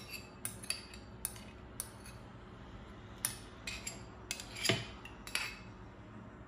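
A metal teaspoon scraping and tapping against a small ceramic bowl and the jug's rim as mustard is spooned out: about ten light clicks at uneven intervals, the loudest knock just under five seconds in.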